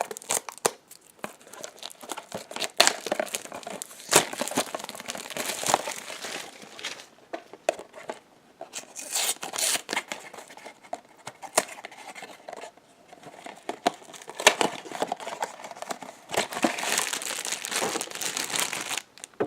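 Plastic wrap and packaging of a Funko Mystery Minis blind box crinkling and tearing as it is unwrapped by hand, in irregular bursts of rustling with sharp crackles.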